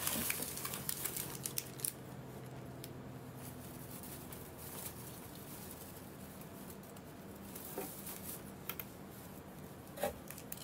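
Rustling and crinkling of a cardboard box and paper packaging being handled during unpacking, with a quick run of small crackles and clicks in the first two seconds and a few short knocks near the end.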